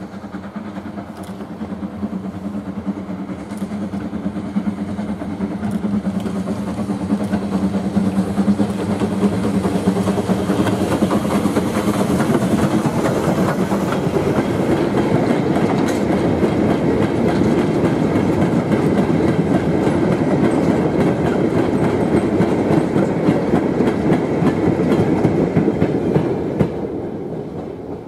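Steam locomotive hauling a loose-coupled freight train of steel mineral wagons, approaching and then passing close by. The wagons' wheels rumble and clatter over the rail joints, growing loud about ten seconds in and dropping away quickly near the end as the train passes.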